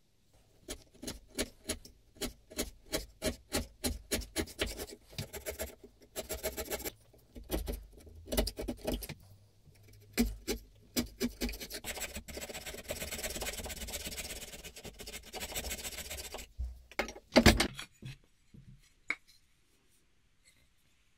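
Chisel paring and scraping at the mouth of a beech wood plane body: a run of short, even strokes about two a second, then a few seconds of steady scraping. One sharp knock comes near the end.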